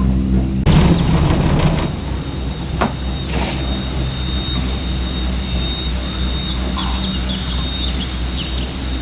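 Cable car gondola riding along its cable, with a steady low hum. A rattling clatter comes about a second in, then a sharp click, and after that a thin high whine holds steady.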